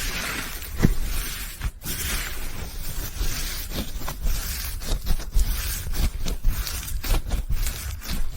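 Slime being squished and worked by hand, with a run of short pops and crackles.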